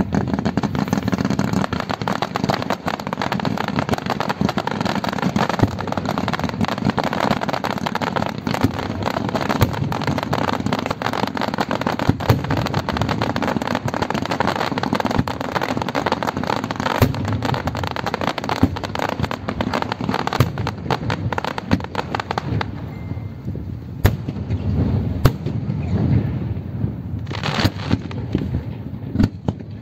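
Fireworks going off in a dense barrage of rapid bangs and crackling for about twenty seconds. After that it thins to a few separate bangs near the end.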